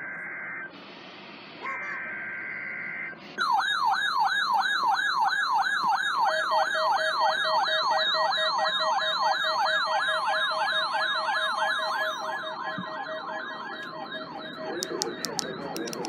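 NOAA Weather Radio Required Weekly Test received on a Midland weather radio: the end of the SAME digital header, two warbling two-pitch data bursts with a hiss between them, then the radios' own alert siren, a rapid yelping sweep up and down about three and a half times a second for about ten seconds, with a steady lower tone joining partway through.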